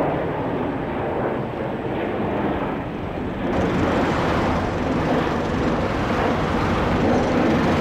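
Jet airliner in flight, a loud, steady rush of engine noise, mixed with road traffic.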